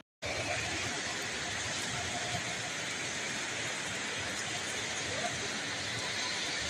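Heavy rain falling steadily: an even, unbroken hiss of downpour.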